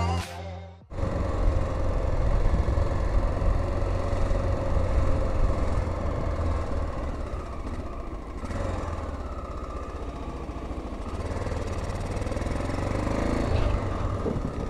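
Honda XL600R's 589cc single-cylinder four-stroke engine running at low road speed with a steady, throbbing rumble. A brief end of intro music is cut off within the first second.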